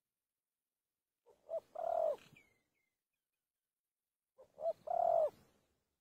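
Spotted dove cooing: two phrases about three seconds apart, each a short note followed by a longer, lower-falling coo.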